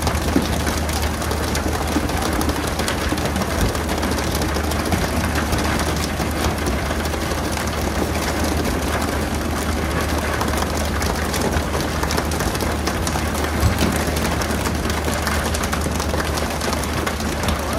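A fishing boat's engine runs steadily with a constant low hum, under a continuous rushing noise.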